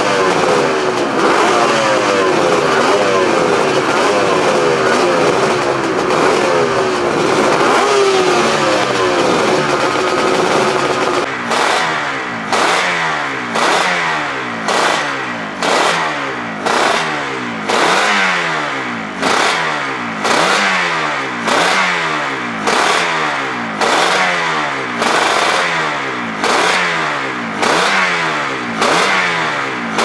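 Two-stroke Suzuki racing motorcycle engines being revved on paddock stands, their pitch rising and falling. About eleven seconds in, this changes to an engine blipped sharply roughly once a second, the revs dropping back after each blip.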